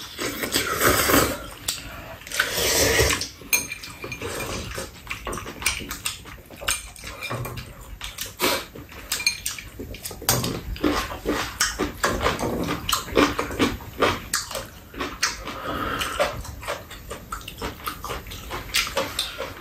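Two people slurping ramen noodles and chewing, with repeated slurps, amid many small clicks and taps of chopsticks and spoons against the bowls.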